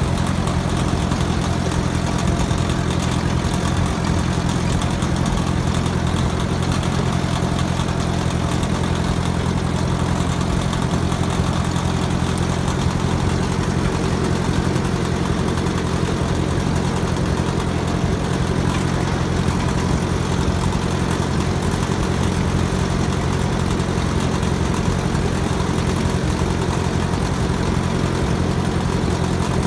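Tractor engine running steadily at an even speed as the tractor drives along, heard from on board.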